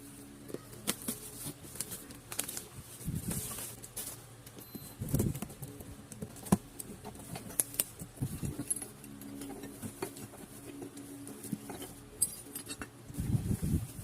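A box and its packaging being handled: scattered clicks, taps and rustles over a faint steady hum.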